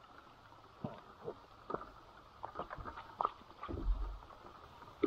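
Freediving fins and snorkel gear being handled on a skiff's deck: irregular small clicks and knocks, with a duller thump a little under four seconds in.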